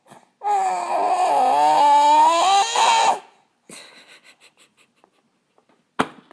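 A baby's loud, wavering, angry cry lasting about three seconds, a fit of temper at being offered chicken. Fainter fussing follows, and there is a sharp knock near the end.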